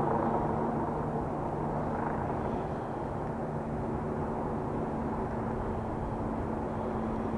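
Steady drone of vehicle engines with a low, even hum.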